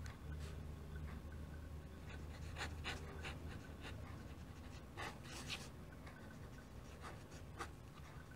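Pen nib scratching on paper in a series of short, faint strokes as a signature is written, over a low steady hum in the first half.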